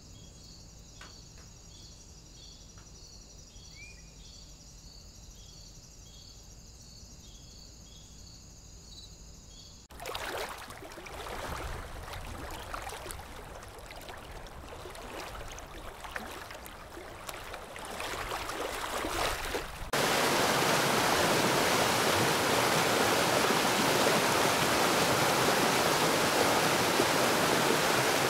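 Calm outdoor ambience: a high insect chirp pulses in a slow steady rhythm, with one short rising bird chirp. About ten seconds in, it changes to irregular water lapping and splashing with wind. About twenty seconds in, it gives way to the loud, even, unbroken rush of a waterfall.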